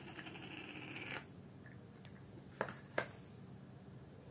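Soft scraping and rubbing as modelling clay is worked out of a small plastic tub, stopping after about a second, then two sharp plastic clicks about half a second apart as the tubs are set down on the board.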